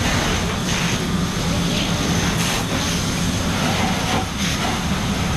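Steady engine drone from a fire engine's pump running under load, under the hiss of a 1 3/4-inch hose line spraying water onto a garage fire.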